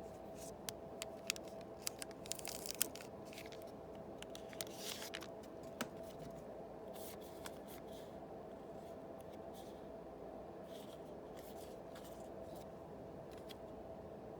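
Yu-Gi-Oh booster packs being opened and their cards handled: wrappers crinkling and tearing, with sharp clicks of cards. Busiest in the first six seconds, then sparser, softer rustles, over a faint steady hum.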